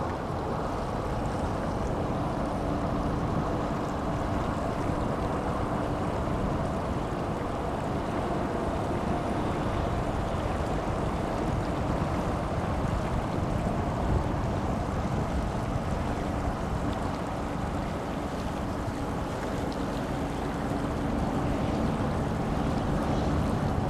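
Steady rush of wind and water with a faint, even motor hum underneath, from boats running on open water.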